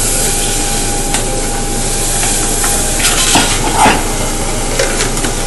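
Steady sizzling hiss from hot pans on a gas stovetop, as a frozen block of broth goes into a hot saucepan beside a pot of heating oil. A few light knocks of pot handling come about three to four seconds in.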